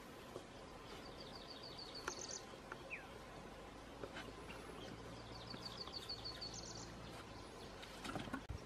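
A songbird singing twice, each phrase a quick run of high notes ending in a brief higher flourish, over a steady outdoor background hiss.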